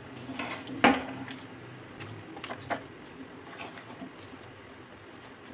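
A metal spoon stirring chicken and vegetables in a metal kadai, with scattered scrapes and clinks against the pan, the sharpest about a second in.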